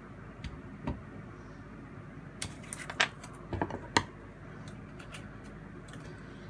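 Hard plastic toy parts clicking and tapping as they are handled, a few scattered clicks then a quick cluster of sharper ones around the middle, over a steady low background hum.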